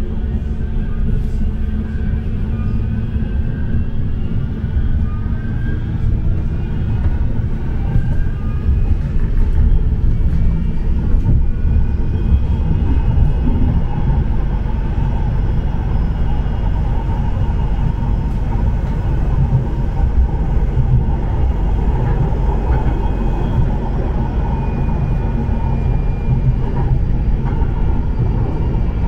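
Bombardier M5000 light-rail tram heard from inside the car: a steady low rumble of wheels on rail. Over it, a traction-motor whine rises in pitch through the first ten seconds or so as the tram gathers speed, then holds steady while it cruises.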